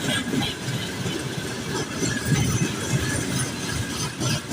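Freight train wagons rolling past on the track, a steady rumble of steel wheels on rails.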